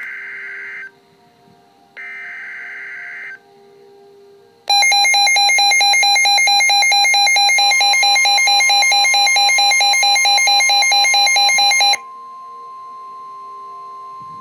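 Weather alert radio receiving a test tornado warning. Two short bursts of screechy digital header data, then from about five seconds in a loud, rapidly pulsing alarm. A steady single-pitched warning tone joins it and goes on alone, quieter, after the pulsing stops.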